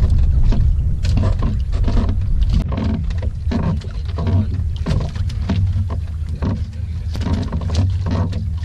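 Wind buffeting the microphone over water lapping and slapping against a small fishing boat in a choppy sea: a steady low rumble with irregular splashy knocks.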